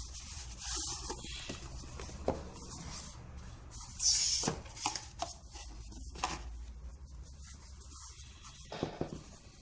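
Cardboard packaging being handled: a kraft-card box slid out of its paper sleeve and turned over, giving soft scraping rustles, the strongest about half a second and four seconds in, with a few light taps.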